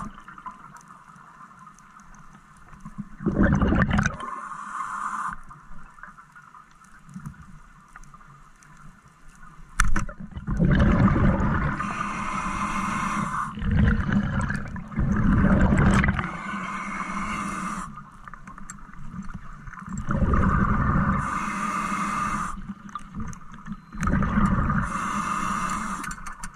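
Muffled underwater noise picked up by a diving camera: water rushing and gurgling in irregular surges of a second or more, with a sharp knock about ten seconds in.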